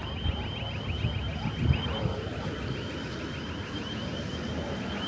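Electronic alarm chirping rapidly and steadily, about six high chirps a second, over low wind rumble on the microphone.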